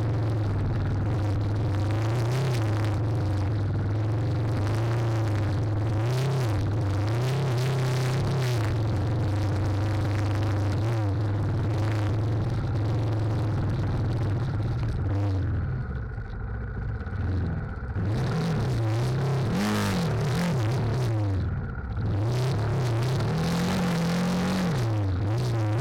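Trail motorcycle engine running under load, its revs rising and falling again and again, dropping back briefly a few times in the later part, with a clatter about twenty seconds in.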